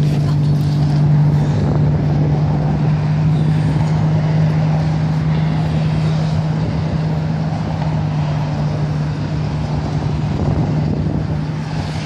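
A steady low machine hum that holds one pitch, under a constant rushing noise.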